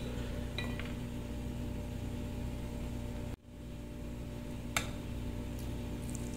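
Steady background hum with a light metallic clink of a spoon against the stainless steel blender jug about half a second in, and a sharp click just before the five-second mark. The sound cuts out for a moment about halfway through.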